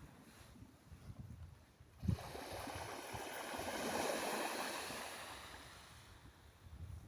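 A sea wave breaks on the shore about two seconds in, and its hissing wash swells and then fades away over the next four seconds.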